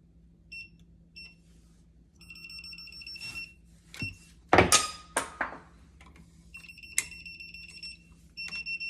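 Non-contact voltage tester beeping as it is held to the switch wires: a few short high beeps, then runs of rapid beeping that mark a live wire, the power feed. A couple of loud knocks from handling the switch and wires come about halfway through.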